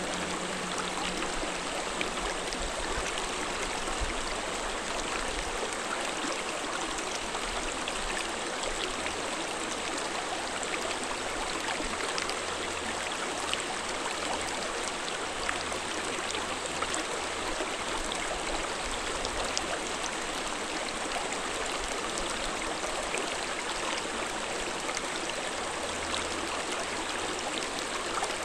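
Shallow rocky mountain stream flowing over stones, a steady rush of water with small splashes and drips scattered through it.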